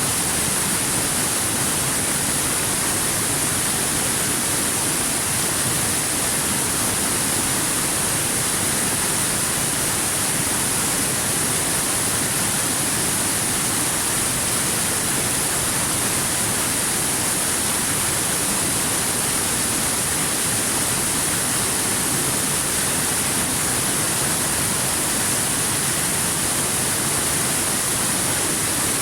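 Waterfall rushing: a steady, even roar of falling water with a strong hiss, unchanging throughout.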